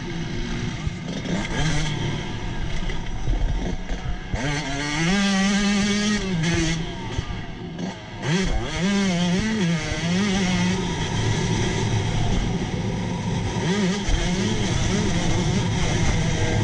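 Motocross bike engine heard from the rider's helmet, revving up and down as the throttle opens and closes, with a short drop-off just before eight seconds in. Steady wind rumble on the microphone.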